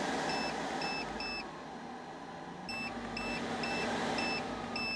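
Electric APU's in-cab air-conditioning unit beeping as its settings are changed, about eight short high beeps in two runs with a pause between. Under them its blower fan runs steadily, dropping lower for about a second in the pause before picking back up.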